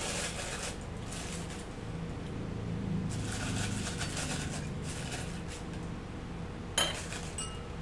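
Clear plastic piping bag rustling and crinkling in the hands as it is opened and handled, in patches, with one sharp click near the end.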